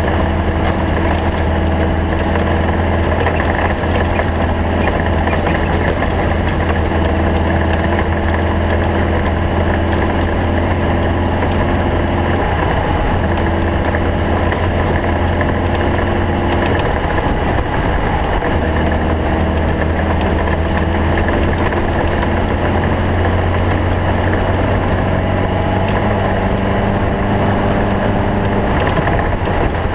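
Stock Bug race car's air-cooled Volkswagen flat-four engine running steadily at a constant note, with a short break in its pitch about seventeen seconds in before it settles again.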